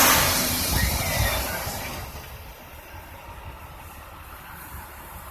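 A vehicle passing close by: a rush of tyre and road noise that fades away over about two seconds, leaving a low, steady rumble.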